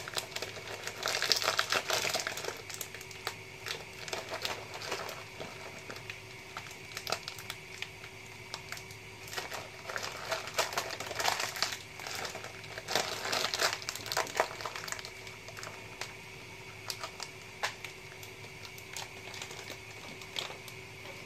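Crinkling of a plastic packet being handled, in irregular bursts that are busiest about a second in and again about halfway through, over a faint steady hum.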